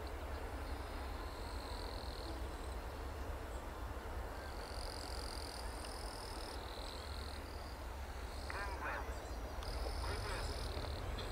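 Outdoor ambience: a steady low rumble with high, thin buzzes that come and go, each lasting a second or so, and a short wavering call about eight and a half seconds in.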